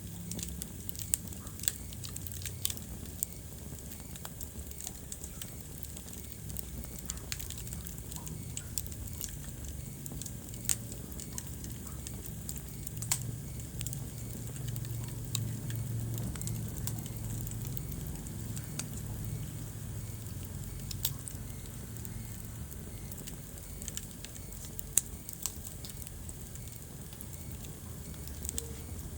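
Wood fire crackling in a fireplace: irregular sharp pops and snaps, a few of them louder, over a low steady rumble of burning flames.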